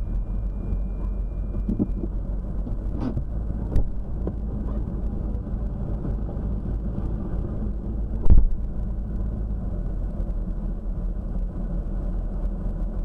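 Car engine idling, heard from inside the cabin as a steady low rumble, with a few short knocks; the loudest comes about eight seconds in.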